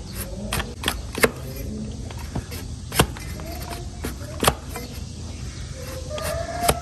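Hoof-trimming tools working on a donkey's hoof: irregular sharp clicks and snaps, about six over a few seconds, the loudest about a second in and again about three seconds in.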